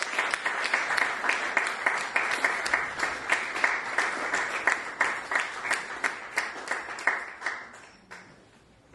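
Audience applauding, the clapping thinning out and dying away about seven to eight seconds in.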